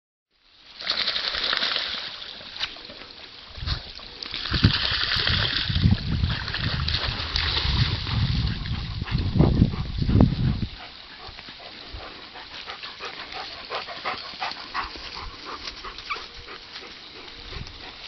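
Dogs at a pond: a chocolate Labrador splashing through the water and a dog barking, busiest for the first ten seconds or so, then quieter.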